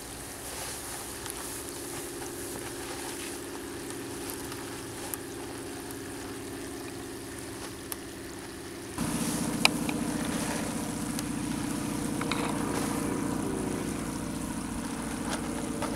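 An engine idling steadily, its even low hum getting louder about nine seconds in, with a few light knocks over it.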